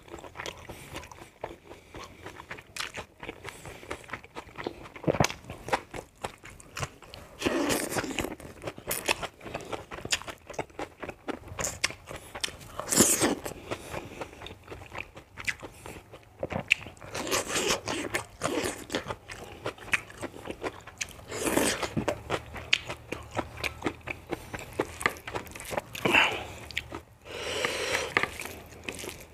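Close-miked eating sounds: a person chewing and biting a meal of rice and fried pork sausage eaten by hand, with many short clicks and several louder bursts of mouth noise along the way.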